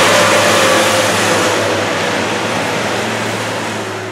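Diesel passenger train passing close by, a steady engine drone under the rumble of its wheels on the rails, fading over the last second as the last car goes by.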